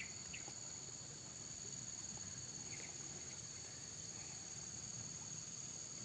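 Steady high-pitched chorus of insects, two constant shrill tones, with a couple of faint short chirps.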